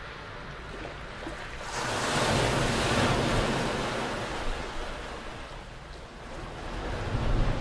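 Small waves washing onto the shore. A surge of surf swells up about two seconds in and fades away over a few seconds, and another starts to build near the end.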